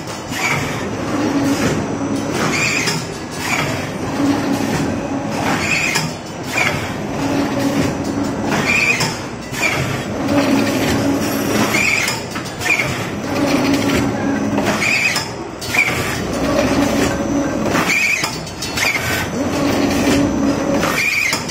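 Cardboard folder-gluer machine running, with a high squeal coming back about every three seconds over a lower running tone as the blanks are fed through.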